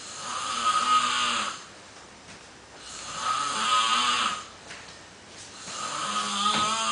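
A sleeper snoring: three long snores, about one every three seconds, with quiet breaths between.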